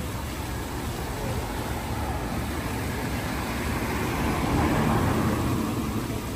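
Street traffic rumble, with a motor vehicle passing more loudly about four to five seconds in.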